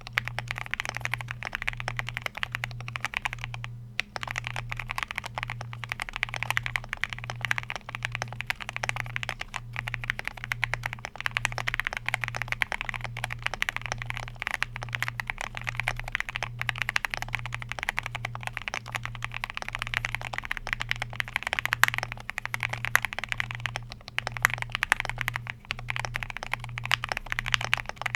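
Continuous fast typing on a Qwertykeys QK75 mechanical keyboard with lubed ThicThock linear switches, an FR4 plate and Tomocaps Hangwa PBT keycaps. The key presses come as a dense run of clacks, with a brief pause about four seconds in.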